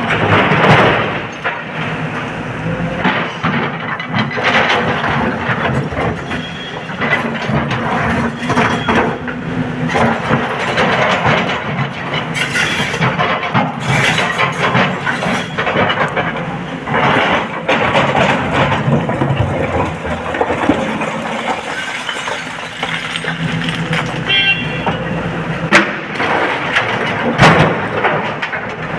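SANY 225 excavator's diesel engine working under load, with rock and spoil crashing and clattering into the steel body of a Tata Prima tipper in repeated loud impacts.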